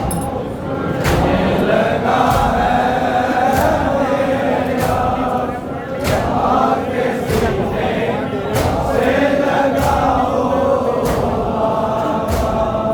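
A group of men chanting an Urdu noha (Muharram lament) together, with sharp strikes keeping an even beat about every second and a quarter, the rhythm of matam chest-beating.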